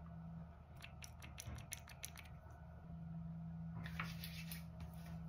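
A quick run of small plastic clicks from handling and pumping a skincare serum bottle, then a short soft rustle of palms rubbing the serum onto skin, over a faint steady hum.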